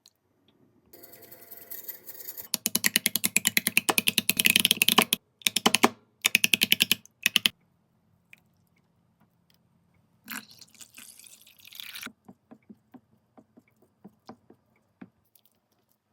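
Eggs being beaten in a bowl: fast, evenly spaced clicking of a utensil against the bowl in several bouts, the first and longest about two and a half seconds. Near the end there is a brief rushing hiss, then scattered light clicks.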